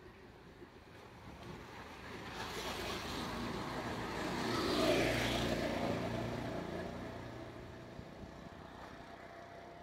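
A motor vehicle passing by: engine and tyre noise swell to a peak about halfway through, then fade away.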